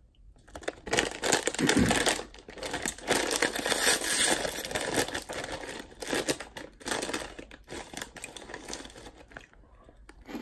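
Crinkling of a plastic Bugles snack bag as a hand rummages inside it for pieces, loudest for a few seconds starting about a second in, then lighter rustles.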